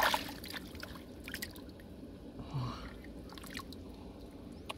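Hands working wet mud in shallow water: squelching, dripping and small splashes with scattered short clicks.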